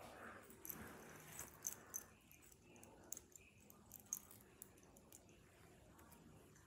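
Faint metallic clicks and clinks of a chunky link chain necklace and its box clasp being handled and fastened, scattered mostly through the first four or five seconds.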